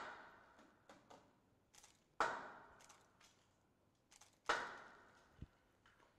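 Sharp knocks of a tool against the nails of a wooden crucifix as they are worked loose to take the figure down. There are three strikes a little over two seconds apart, each echoing long in a stone church, with a few small clicks between.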